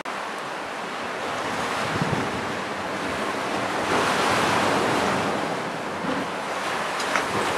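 Wind buffeting the microphone: a steady rushing noise that swells louder about four seconds in.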